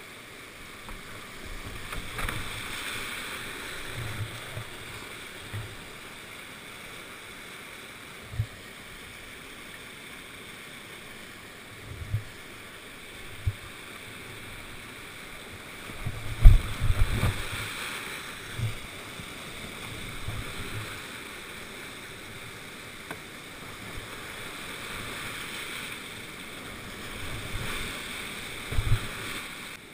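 Whitewater of a steep mountain creek rushing steadily close around a canoe running the rapids. Scattered low thumps and splashes of the boat and paddle in the water punctuate it, loudest about halfway through and again near the end.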